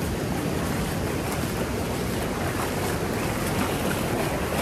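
Pacific surf washing and breaking in the shallows, a steady rush of water with no distinct events, with wind rumbling on the microphone.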